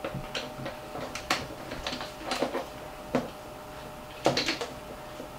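Handling noise from a telescope: a scatter of clicks, knocks and short scrapes as the clamp knobs are loosened and the 8-inch astrograph tube is shifted forward on its side-by-side saddle to balance it.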